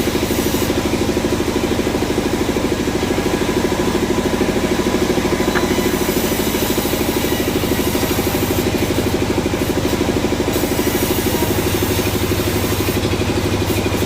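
An engine running steadily at an even speed, with a fast, regular firing beat.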